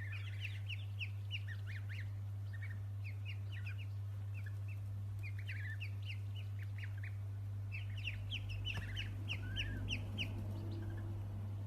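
Many small birds chirping in quick, high, short peeps, busiest near the start and again about eight to ten seconds in, over a steady low hum.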